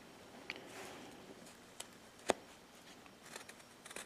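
Carving knife making small cuts in basswood: soft scraping with several light clicks, the sharpest about two seconds in.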